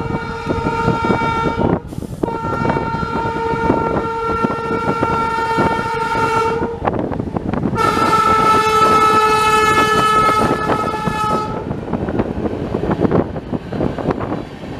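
Indian Railways electric train horn sounding in long, steady blasts: one ends about two seconds in, then two more of about four seconds each. Beneath them runs the rumble and clatter of a moving train, which is all that is left near the end.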